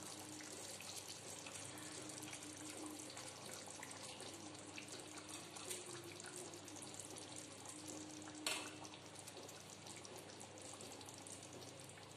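Tamarind fish curry simmering in a pan on a gas stove: a faint steady bubbling hiss with small crackles. One sharp knock about eight and a half seconds in.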